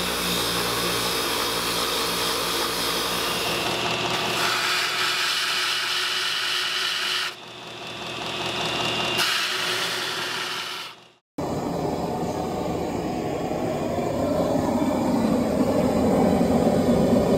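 Shop machines grinding steel: a bench grinder's wheel runs with the steel held against it, then a belt grinder grinds the knife blade. After a brief break about eleven seconds in, a gas forge's burner roars steadily.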